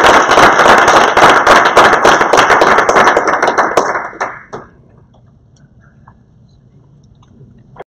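Audience applauding in a small room, the clapping dying away about four seconds in to quiet room tone.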